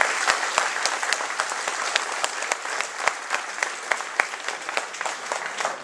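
Audience applauding, the clapping dense at first and thinning to more scattered claps toward the end.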